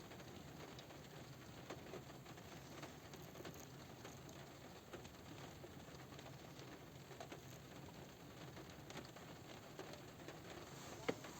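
Light rain falling on a car roof: a faint, even hiss with scattered small drop ticks, and one sharper tick near the end.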